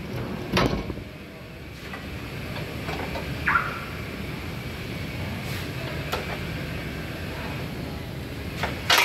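Workshop metal clanks: a knock about half a second in, a short metallic ring about three and a half seconds in, and near the end two loud sharp metal strikes as a long steel bar is swung up against the underside of the car on the lift.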